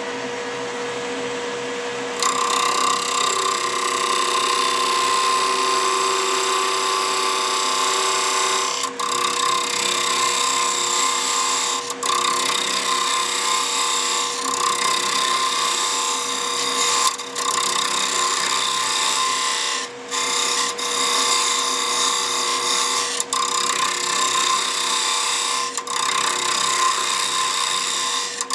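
Wood lathe running with a steady motor whine while a hand-held turning tool cuts the spinning wooden tool-handle blank, turning down its end to fit a ferrule. The cutting hiss starts about two seconds in and carries on loudly, breaking off briefly several times as the tool comes off the wood.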